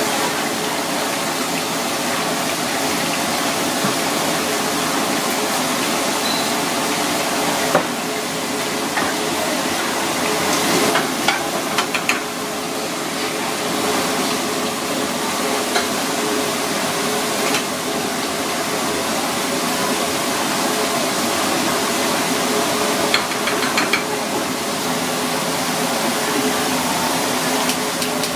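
Steady kitchen hiss of cooking, with a faint steady hum under it. A few light clicks and clinks of utensils against metal pans come and go, most around the middle and again near the end.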